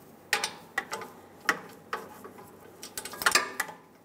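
Ratchet wrench on an oxygen-sensor socket clicking in short, irregular strokes as a new downstream O2 sensor is tightened down onto its crush washer. A quicker run of louder clicks comes a little after three seconds in.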